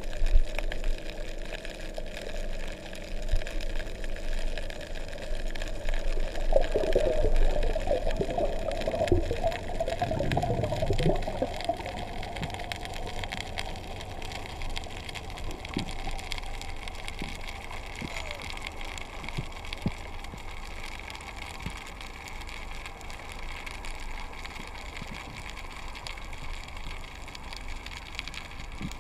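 Underwater ambience picked up by a submerged camera: a steady low hiss and rumble, with a stretch of gurgling bubbles from about six to twelve seconds in and a few faint clicks after that.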